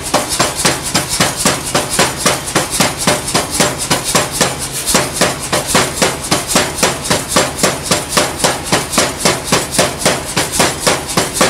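Power hammer striking a glowing hot steel bar in rapid, even blows, about four to five a second, drawing the bar out longer and thinner.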